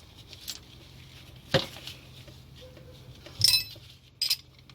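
Metal brake parts clinking as they are handled and set down: four sharp clinks, the loudest about one and a half and three and a half seconds in, the later one ringing briefly.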